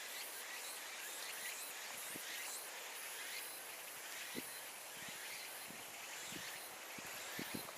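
Steady outdoor background hiss of a rural site, with a few soft low thumps in the second half.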